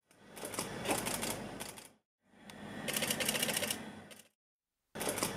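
Camera shutter firing in rapid continuous bursts, about a dozen clicks a second, in three runs separated by short silences; the first two swell in and fade out and the third starts abruptly near the end.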